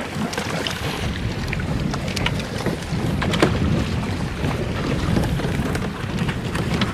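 Wind buffeting the microphone over choppy sea, with small waves lapping against a plastic fishing kayak and scattered light clicks and splashes.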